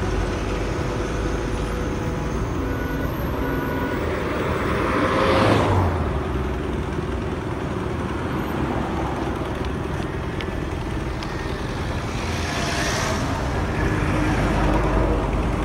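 Road traffic passing close by: a steady hum of engines and tyres, with one car rushing past loudly about five and a half seconds in and another vehicle passing around thirteen seconds.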